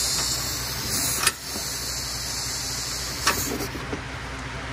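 Pneumatic impact wrench running with a loud hiss of exhausting air as it drives in a 12 mm starter bolt. It stops with a click about a second in, runs again, and cuts off with another click a little past three seconds.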